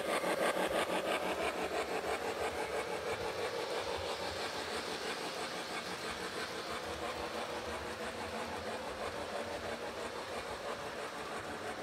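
O scale electric model train running along three-rail track, its wheels clicking in a steady rhythm of several clicks a second over the rail joints along with the running hum of the train, easing slightly as it goes.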